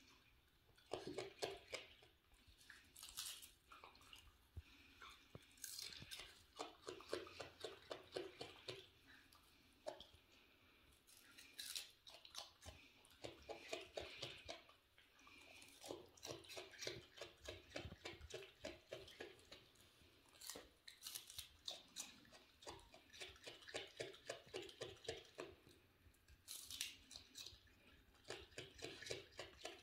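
Raccoon chewing crunchy cabbage leaf: quick runs of crunching bites, several a second, broken by short pauses.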